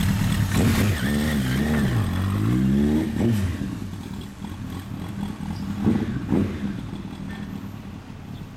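Suzuki Katana GSX1100S's air-cooled inline-four breathing through a hand-bent 4-into-1 collector exhaust: it is revved twice about a second in, then pulls away with the pitch climbing until a gear change, and fades as the bike rides off, with another short burst of throttle about six seconds in.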